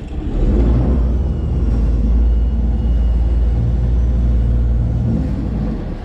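Sailboat's inboard diesel engine run hard in reverse, a loud low rumble that builds at the start and eases off about five seconds in: the boat being backed down in an emergency stop.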